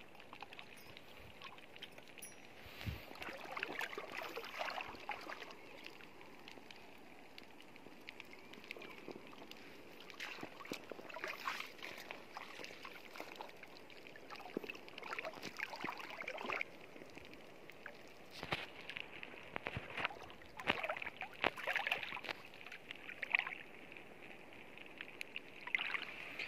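Shallow seawater sloshing and splashing in irregular bursts, stirred by someone moving through it.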